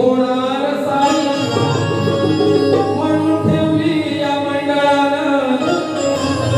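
Male voice singing a Konkan Shakti-Tura folk song in long held lines, accompanied by a two-headed hand drum.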